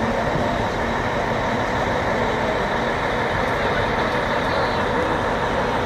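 Diesel engines of several tour coaches and buses running steadily at idle and crawling pace in a traffic jam.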